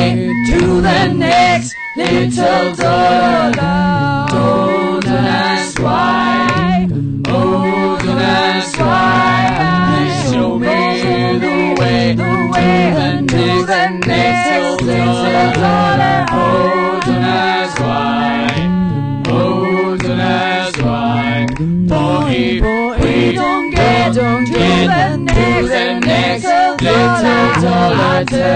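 Voices singing a capella, sung lines running on without a break.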